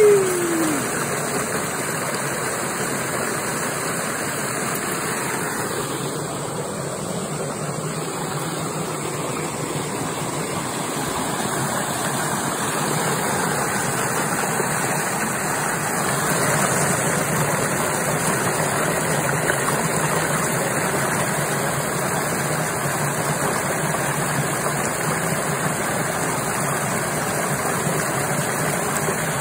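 Water rushing through a narrow concrete drainage channel: a constant, even rush. Right at the start, a brief falling vocal sound.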